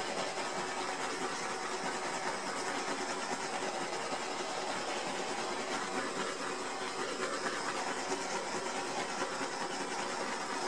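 Small handheld gas torch burning with a steady hiss as it is swept over a wet resin surface.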